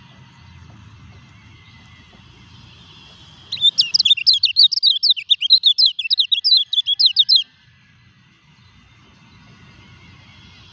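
Caged yellow white-eye (kecial kuning) in molt, singing one fast, chattering burst of sweeping high notes for about four seconds, starting a few seconds in and stopping abruptly.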